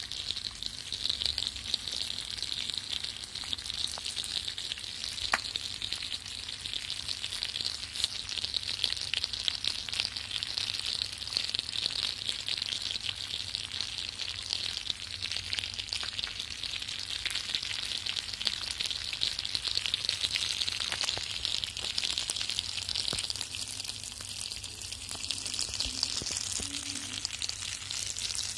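A whole spice-coated fish frying in oil on a flat pan: a steady sizzle with fine crackling pops as it roasts.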